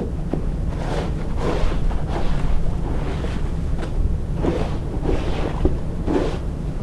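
Wind rumbling on the microphone, with a series of short, irregular swishing or crunching sounds about every half second to second.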